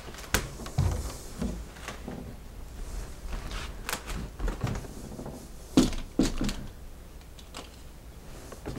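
Wooden cupboard doors being opened and swung wide: a scatter of knocks and clicks of wood, with soft handling sounds between them, the loudest knock about six seconds in.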